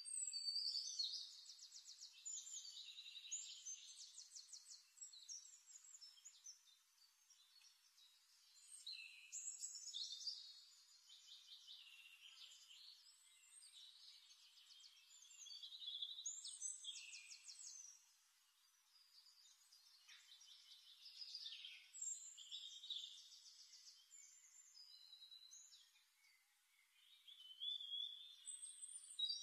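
Faint bird song: phrases of fast, high trills and short whistles, repeated every five to seven seconds.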